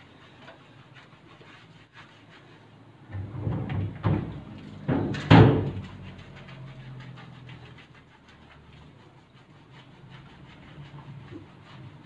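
Hands working shampoo into a wet dog's coat: faint, quick rubbing strokes over a steady low hum, with a louder burst of knocks and rustling about three to five seconds in.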